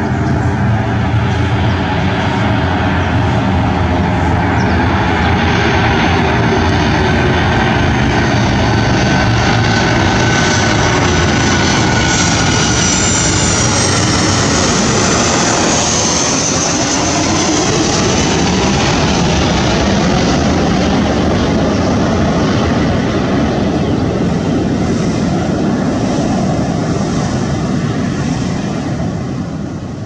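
Boeing 737 airliner's twin CFM56 jet engines on final approach, passing close overhead. Loud steady jet noise with a whine that falls in pitch as the aircraft goes by, about halfway through. The sound eases off near the end.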